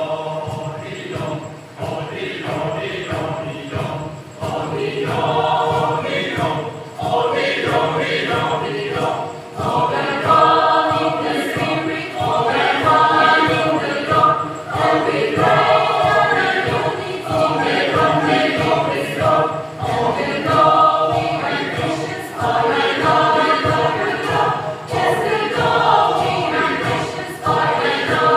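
Large mixed choir of men and women singing a Christian hymn in many voices, its opening lines in Konyak, in sung phrases with short breaks between them.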